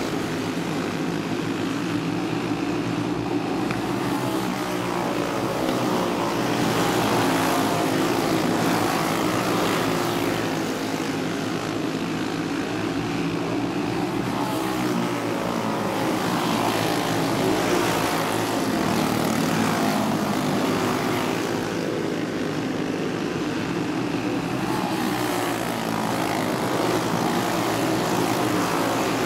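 A pack of racing karts running flat out together, their Briggs & Stratton Animal single-cylinder engines buzzing at high revs. The drone swells and fades and the pitch rises and falls as the karts pass and work through the turns.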